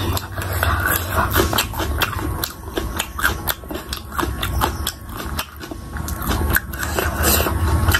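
Close-miked chewing of crispy fried pakoras, with many quick, sharp crunches.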